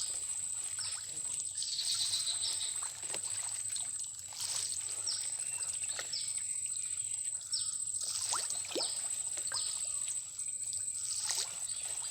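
Pond water splashing and trickling in a run of small, irregular splashes.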